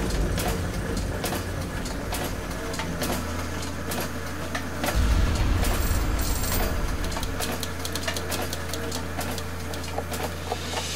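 Machinery sound effects for an animated intro: a steady low mechanical hum under many irregular clicks and clanks, with a deeper rumble swelling in about five seconds in.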